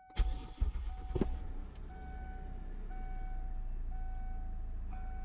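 2002 Kia Sedona's 3.5-litre V6 cold-started: it cranks briefly, catches and settles into a steady idle. A warning chime in the van beeps evenly, about once a second, throughout.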